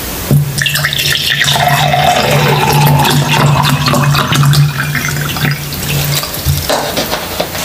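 Water poured from a plastic bottle into a glass mug over ice cubes: a continuous splashing, filling stream that stops near the end as the bottle is tipped back.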